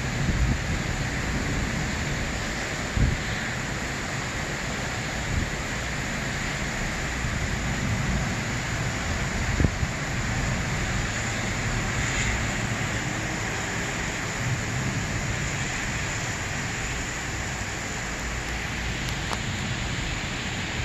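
Heavy rain pouring steadily in a thunderstorm, with a few brief low thumps, about three seconds in and again near ten seconds.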